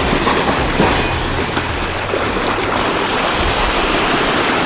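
Sea waves washing and rushing over shore rocks, a steady rush of water.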